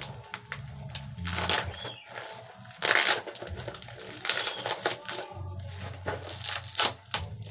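Packaging of a clothes rack being torn open and handled, with about four loud bursts of tearing and rustling.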